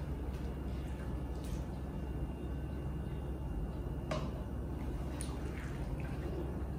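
Faint scrapes and a few light clicks of a serving spoon lifting stir-fried noodles out of a pan onto a plate, over a steady low hum.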